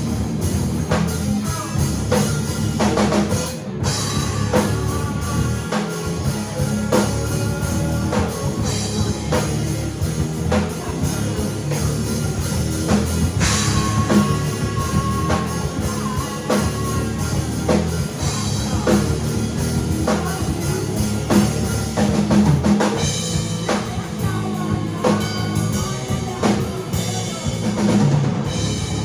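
A rock band playing a song together, with the drum kit prominent and a long held high note about halfway through.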